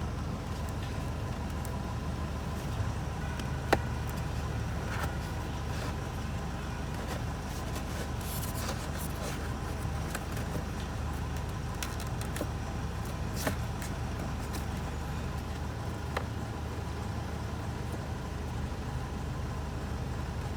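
Steady low mechanical rumble, with a few sharp clicks and brief rustles as cabin air filters and their housing are handled; the loudest click is about four seconds in.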